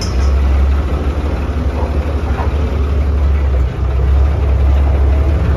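Farm tractor's diesel engine running steadily, heard from on the tractor: a loud, deep, even drone.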